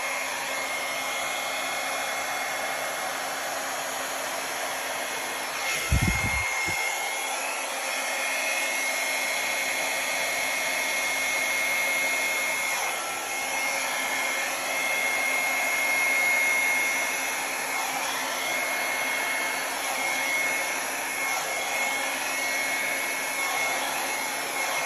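Small hair dryer running on its low setting, blowing air across wet acrylic paint: a steady hiss of air with a high, even motor whine. A brief low thump about six seconds in.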